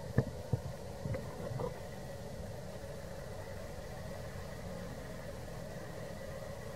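Steady low background hum with faint steady tones, like a distant idling engine. A few short knocks and taps come in the first two seconds.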